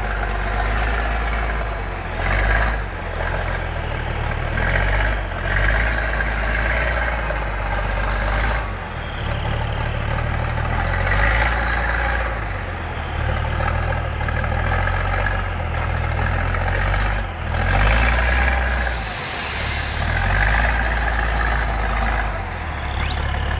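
Six-wheeled trial truck's engine running steadily under load as the truck crawls through deep mud.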